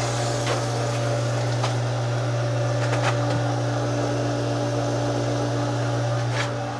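Electric well pump motor running with a steady low hum while it builds pressure after a restart on a new pressure switch, with a few faint clicks.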